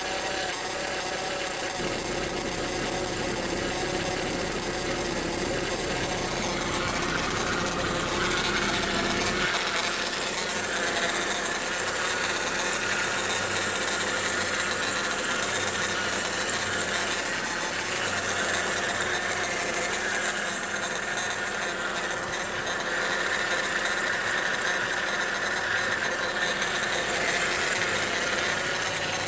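2000 Ford Focus engine idling, with a steady mechanical whine from the passenger side of the engine that the owner cannot place and takes for a possible timing belt, alternator or belt tensioner fault. The whine grows stronger about seven seconds in, and the low rumble drops away a couple of seconds later.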